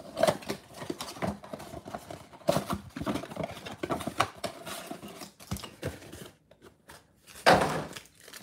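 Cardboard trading-card box being opened by hand: taps, scrapes and flaps being pulled back, with a louder rustling scrape about seven and a half seconds in as the stack of packs comes out.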